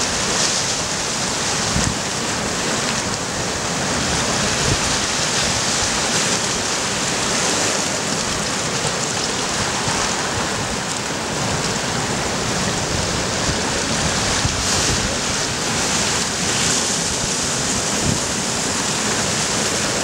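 Sea surf washing against shoreline rocks, a steady rush of breaking waves, with wind buffeting the microphone.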